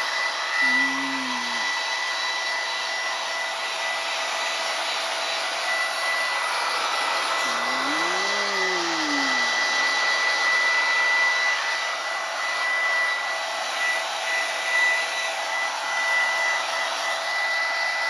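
Hair dryer running steadily: a rush of air with a constant high whine. Twice, a brief low voice-like moan rises and falls, about a second in and again around eight seconds.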